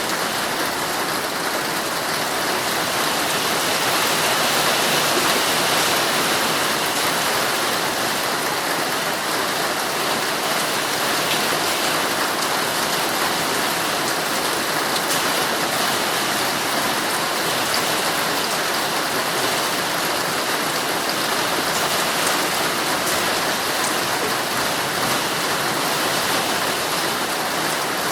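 Heavy rain drumming steadily on a tent's fabric.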